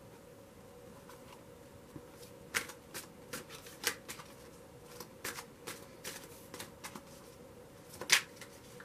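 A deck of tarot cards being shuffled in the hands: a run of irregular quick card flicks and slaps starting about two seconds in, with a louder snap near the end.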